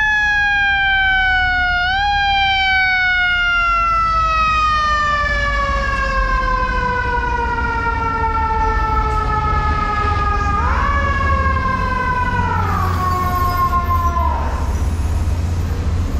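Fire truck siren wailing: after a brief rise its pitch falls slowly for several seconds, then jumps up about two-thirds of the way in, steps down and fades out, over a steady low rumble.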